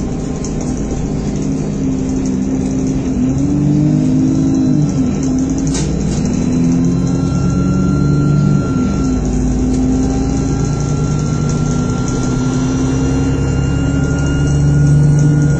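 Bus engine and drivetrain heard from inside the saloon of a Stagecoach bus on the move. The engine note rises and drops twice, about 3–5 s and 7–9 s in, as it pulls through the gears. A faint steady whine runs underneath, and there is a single brief click about 6 s in.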